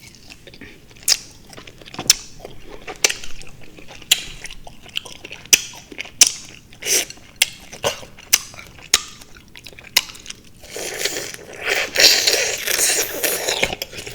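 Close-up mouth sounds of someone eating juicy fruit (honeydew, cantaloupe and grapes): irregular wet smacks and chewing clicks. About ten seconds in it turns into a denser, louder stretch of juicy chewing.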